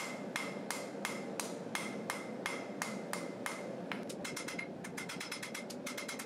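Hand hammer striking a red-hot knife blade of old rasp steel on an anvil, with a short ringing note on each blow. The blows come steadily at about three a second, then quicken into a faster run of lighter strikes about four seconds in.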